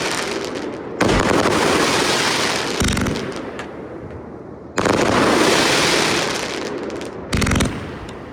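Subzero 85-shot firework cake firing: sudden loud bursts, four in all, each trailing off over a second or two before the next.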